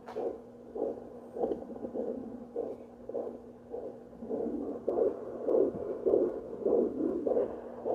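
Pulsing whoosh of blood flow through a Simply Tots Baby Sound C home fetal Doppler's speaker, nearly two beats a second over a steady low hum. It is probably placental blood flow rather than the fetal heartbeat.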